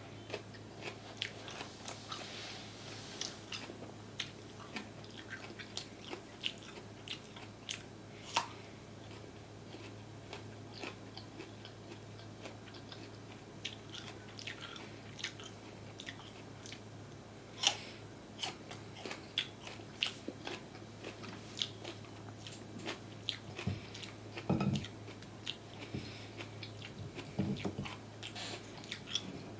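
Close-up eating sounds: biting and chewing food, a run of many sharp, irregular mouth clicks and crunches, with a few heavier low thuds toward the end. A steady low hum runs underneath.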